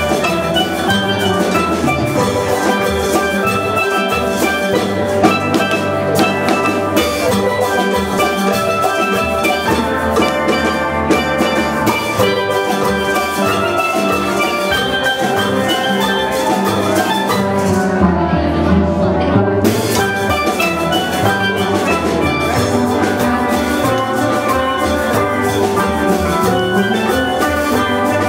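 Steel band playing a calypso live: many steelpans strike out melody and chords in quick, ringing notes over drums, with a steady beat.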